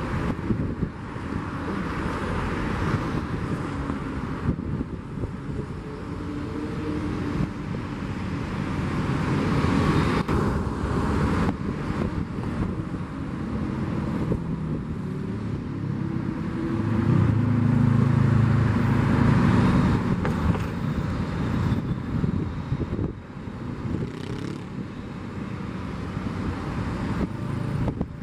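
Distant jet airliner engines rumbling steadily as the aircraft taxis, swelling to their loudest a little past halfway, then easing.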